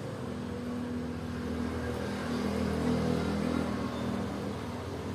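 A motor vehicle's engine running, a steady low hum that grows a little louder through the middle and then eases off.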